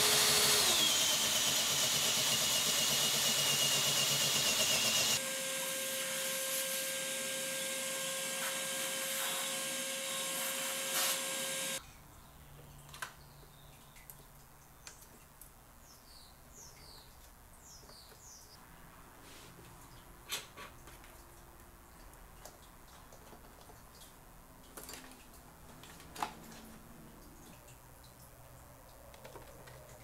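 Electric drill boring through a panel. Its motor whine drops in pitch as the bit bites, the sound changes abruptly about five seconds in, and the drill stops at about twelve seconds. Small, quiet clicks and handling follow.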